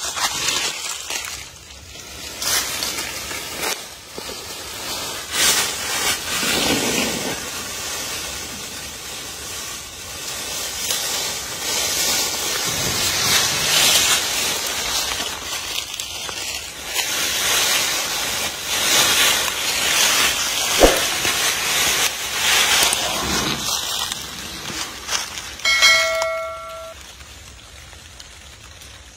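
Dry leaf litter crackling and rustling in irregular bursts as a Komodo dragon pulls and tears at a wild boar carcass. Near the end comes a short whistled tone of about a second.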